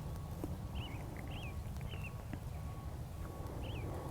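Birds chirping: short, hooked chirps repeated in small quick groups, over a faint steady low background hum.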